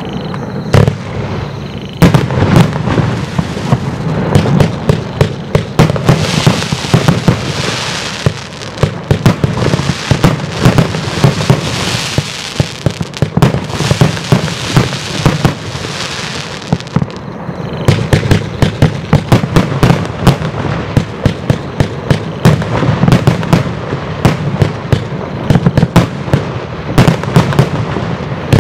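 Geisha 'Burning Heart' 106-shot firework compound cake firing continuously: a dense run of sharp launch thumps and bursts. From about 6 to 17 seconds in there is a hissing crackle from the effects as well.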